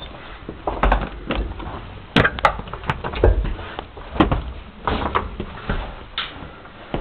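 Irregular knocks, scrapes and shuffling steps of cavers clambering over rock in a narrow cave passage, with bumps from the handheld camera. There are about eight sharp knocks at uneven intervals, some with a low thud.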